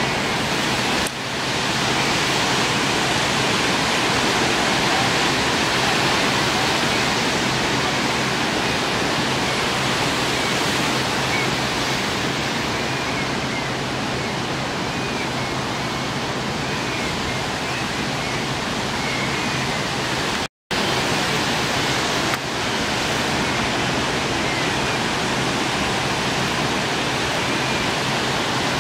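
Steady rushing noise of ocean surf, with a few faint short chirps midway. The sound cuts out completely for a moment a little over two thirds through.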